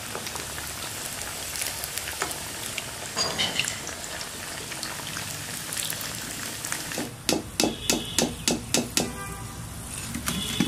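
Sattu-stuffed bati deep-frying in mustard oil in a steel kadhai, a steady sizzle. Past the middle, a quick run of about eight metallic knocks as a slotted steel spoon strikes the pan.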